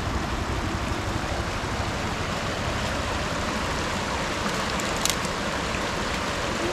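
Shallow river running over rocks, a steady rushing hiss with a low rumble under it, and one brief sharp click about five seconds in.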